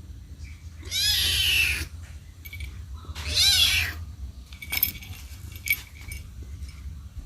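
A kitten meowing twice, two long calls of about a second each, calling for its mother cat. A couple of sharp clicks follow.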